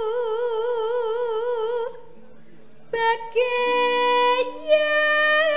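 A Javanese sinden, a female singer, sings long held notes into a microphone. The first note carries a wide, even vibrato and breaks off about two seconds in. After a short pause a new held note begins and steps up, with a lower steady note sounding beneath it.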